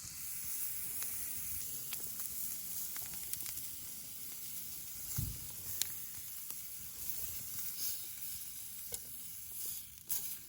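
Meat sizzling as it cooks over heat: a steady high hiss with scattered pops of spitting fat.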